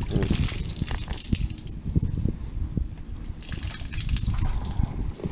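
Water gushing and trickling out of a torn clear plastic fish weigh bag holding bass, in two spells with a short break just after the middle, over low handling rumble and a few knocks.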